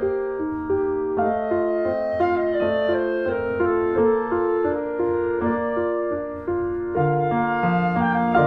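Instrumental background music led by piano, with a lower bass line coming in near the end.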